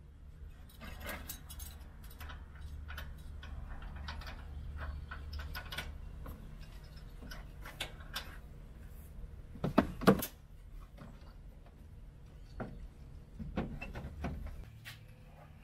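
Trailer safety chains and hitch hardware clinking and clicking as they are hooked to a pickup's receiver hitch, with one louder metal clank about ten seconds in. A low steady hum runs underneath.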